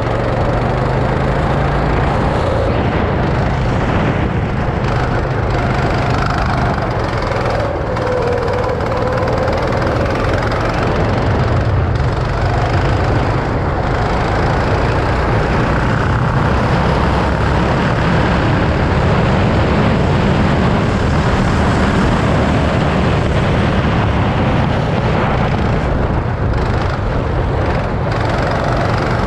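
Go-kart engine running under throttle, heard from the driver's seat as the kart laps the track. The sound is loud and continuous, and its pitch shifts a little with the throttle through the corners.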